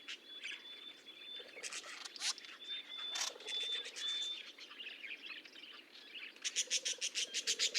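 Budgerigars chirping and warbling, with a thin, steady, high whistled note held for a second or two at a time, and a quick run of about six chirps a second near the end.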